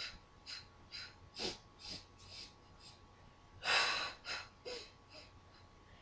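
A woman breathing in short, sharp puffs, about two a second, in time with the arm beats of the Pilates Hundred exercise, with one longer, louder breath a little past the middle.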